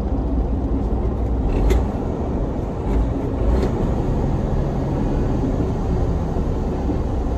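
Truck engine and road noise heard from inside the cab while driving: a steady low rumble.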